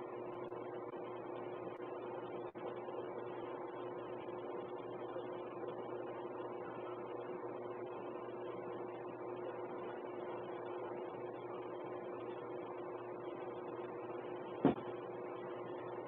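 Steady electrical-sounding hum with two unchanging tones, heard through a video doorbell camera's live audio feed, which cuts off everything above the mid-highs. A single short click about fifteen seconds in.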